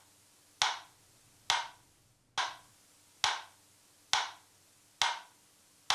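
Steady ticking: sharp, wooden-sounding clicks at an even pace of a little more than one a second, each with a short ringing tail.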